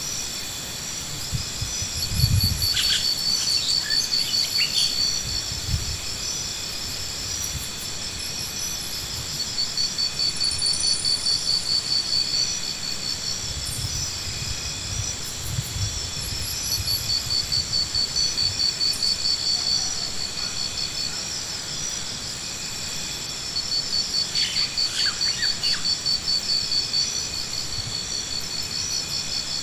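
Insects singing: high, rapidly pulsing trills a few seconds long that come back every several seconds over a steady high hum, with a few short chirps.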